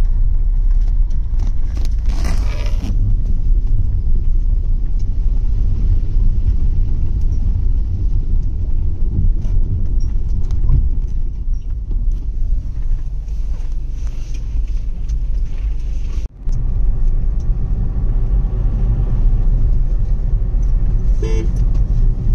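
Car driving over a rough unpaved track, heard from inside the cabin: a steady low rumble of engine and tyres, cutting out briefly about sixteen seconds in.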